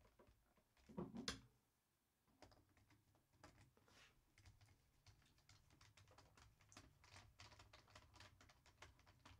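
Faint, quick small clicks and scrapes of a screwdriver turning out small screws from a laptop's plastic bottom case, with a louder clatter of handling about a second in.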